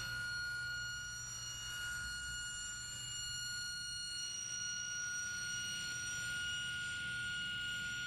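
Grizzly table saw running with a steady high whine over a low motor hum, its blade being raised up through a new MDF zero-clearance insert to cut the blade slot; a hissy cutting noise grows from about halfway through.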